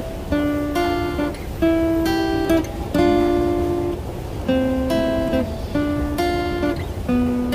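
Background music: an acoustic guitar strumming and picking chords in a steady rhythm.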